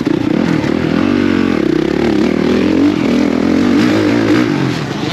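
Dirt bike engine revving up and down, its pitch rising and falling as the bike is ridden around a motocross track, heard from on the bike itself.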